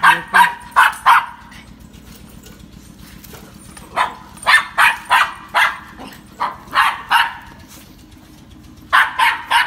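Small dog barking in quick, sharp, high-pitched runs: about four barks at the start, a longer run of about eight in the middle, and three more near the end.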